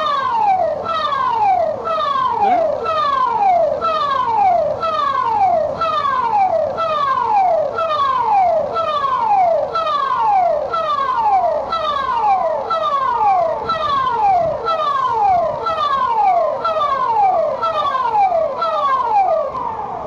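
SCDF public warning system siren sounding as a rapid, repeating falling tone, each sweep dropping in pitch and starting again about every 0.7 s.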